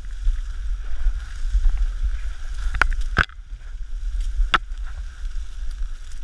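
Marsh reeds rustling and brushing against the microphone as someone pushes through them by hand, with a steady low rumble and a few sharp clicks, twice around three seconds in and once about four and a half seconds in.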